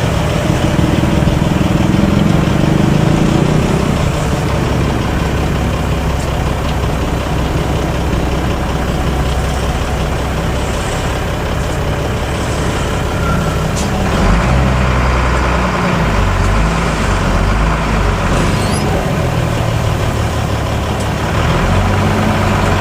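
Bus engine running under way with road noise, heard from inside the cabin. The engine's low note shifts about two-thirds of the way through.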